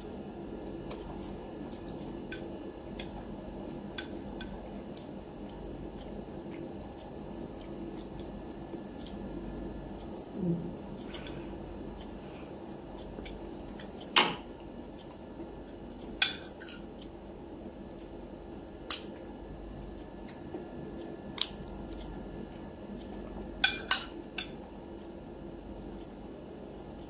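A metal fork clinking and scraping against a plate during a meal, in scattered short clicks. The sharpest clinks come about halfway through and near the end, two close together. A steady low hum runs underneath.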